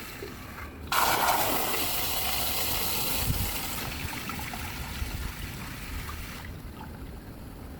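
AILANI N20 smart toilet running its big (full) flush. Water starts rushing suddenly about a second in, then tapers off and fades out after about six seconds.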